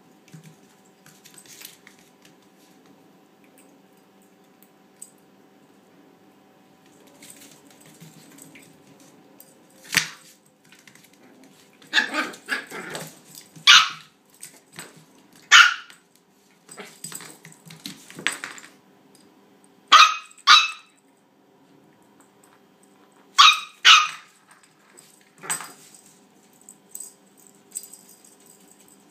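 Toy Australian Shepherd puppy barking: short, high-pitched yaps, about ten of them, several in quick pairs, starting about a third of the way in after a quiet stretch.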